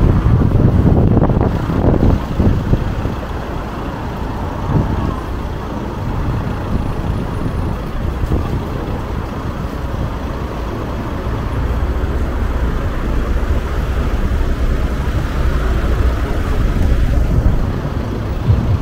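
City street traffic: a steady low rumble of passing cars and buses, louder for the first couple of seconds.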